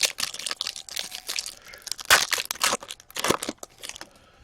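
Foil trading-card pack wrapper crinkling and tearing as a pack of hockey cards is opened, with bursts of crackling, the loudest about two and three seconds in, dying down near the end.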